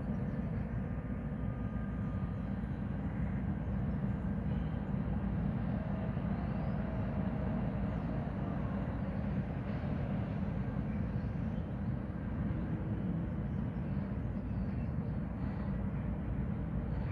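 Steady low mechanical rumble, with faint thin tones over it and no distinct knocks or bangs.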